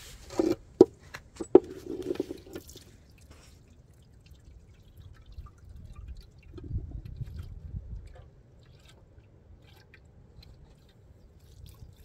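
Water dripping and splashing from a tank tap into a metal cooking pot, with a few sharp knocks of the pot in the first two seconds.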